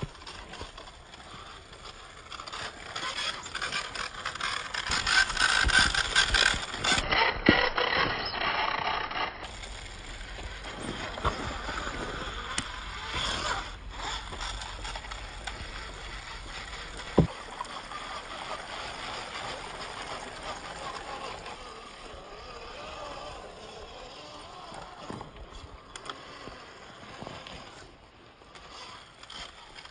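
Axial Capra 1.9 RC trail buggy crawling over rough ground: its electric motor and gear drivetrain running with tyres scraping over rock and dirt, and a few sharp knocks, the loudest about 17 seconds in.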